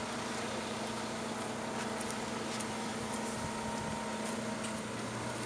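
Mobile crane's engine running, a steady hum with a constant low drone.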